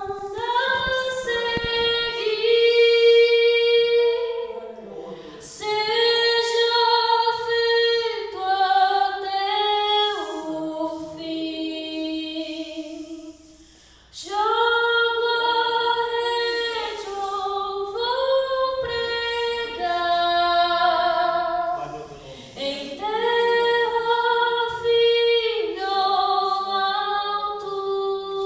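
A woman singing a slow worship song solo into a microphone, with long held notes; her voice dominates and any guitar is barely heard. There is a short break in the singing about halfway through.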